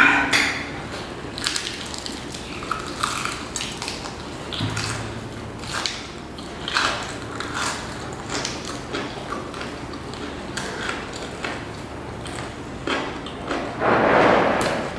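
Eating sounds: bites and chewing of crispy fried chicken, with scattered small clicks and clinks, and a louder crunch or rustle near the end.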